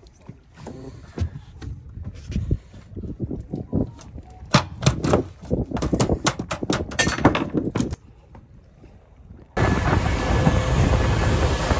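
A freshly landed fish flapping on a fiberglass boat deck: a quick, irregular run of sharp slaps and knocks for about four seconds. Near the end, a steady loud rush of wind and motor from the boat running at speed starts suddenly.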